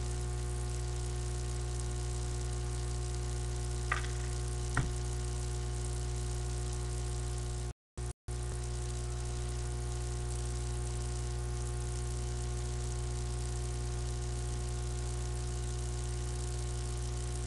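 Steady electrical hum with hiss from a webcam's built-in microphone, with two short clicks about four and five seconds in. The audio cuts out completely for a moment near the middle.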